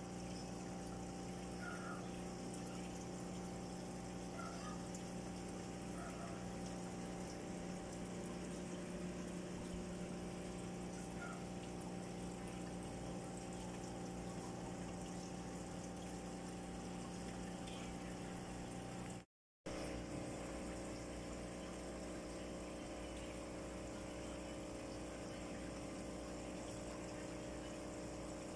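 Aquarium air pump and sponge filter running: a steady hum over the sound of moving water. The sound cuts out for a moment about two-thirds of the way through.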